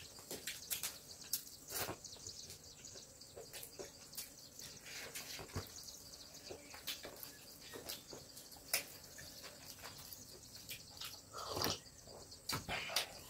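Quiet eating by hand: scattered small clicks and soft taps of fingers, mouths and dishes, a few a little louder near the end.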